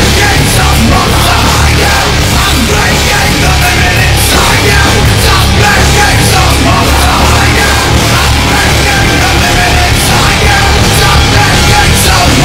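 Loud, bass-heavy heavy metal music with a steady driving low end, playing without a break.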